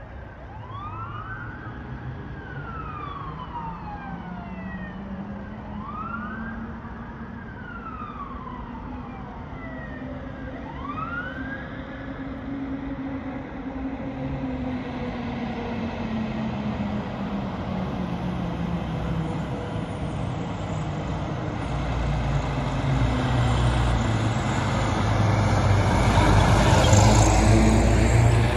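Fire apparatus siren wailing in slow rising-and-falling sweeps, each a few seconds long. The siren fades after about twelve seconds, and the rumble of an approaching fire truck's engine and tyres builds steadily, loudest near the end as it draws close.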